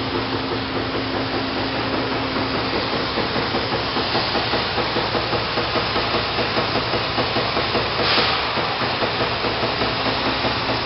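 Amada Vipros 255 CNC turret punch press running, a steady low hum and hiss that picks up a regular pulse a few times a second from about four seconds in. There is a short burst of hissing about three-quarters of the way through.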